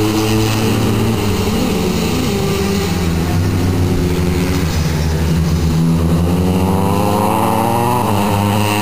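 Racing motorcycle engines running hard as the bikes lap a short circuit, a steady high-revving drone whose pitch rises over the last couple of seconds as a bike accelerates.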